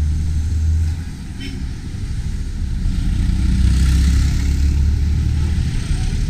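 Vehicle and road noise with a heavy low rumble and flutter like wind buffeting the microphone, growing louder and hissier from about three seconds in.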